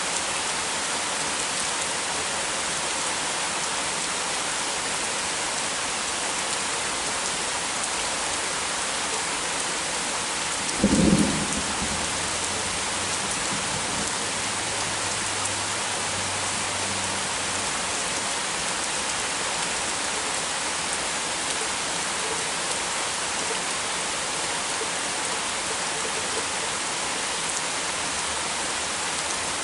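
Heavy rain falling steadily, with a single sharp thunderclap about eleven seconds in, followed by a few seconds of low rumble.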